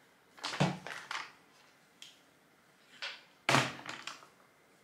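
Close handling noise of hands working through long hair while sectioning it for velcro rollers: rustling with dull thumps, in a burst about half a second in and a louder one about three and a half seconds in.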